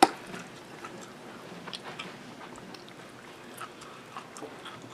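Hot sauce bottle handled and shaken over food: one sharp plastic click right at the start, then faint scattered clicks and ticks as the sauce is shaken out.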